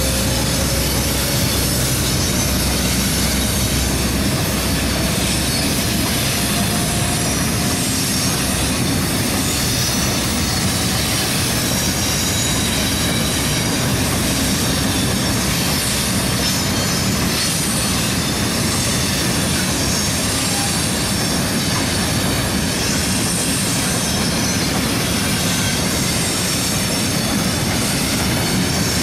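A long ballast train of hopper wagons rolling slowly out of a rail yard: a steady rumble of wheels on the track with faint squealing from the wheels. A faint whine rises slowly in pitch over the first several seconds.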